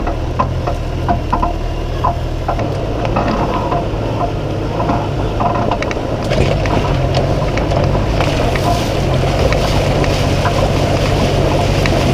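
Toyota LandCruiser Troop Carrier driving on a rough dirt track: a steady engine drone with knocks and rattles in the first half, the road noise growing louder about six seconds in.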